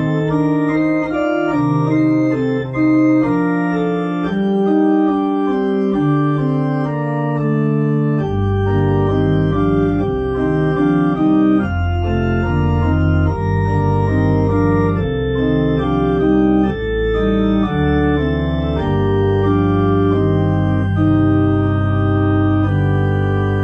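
Two-manual electronic organ playing a slow chordal piece of held, changing chords; deep bass notes come in about eight seconds in.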